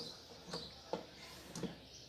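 About four light clicks and taps of metal parts and tools being handled while the washing machine's transmission assembly is taken apart.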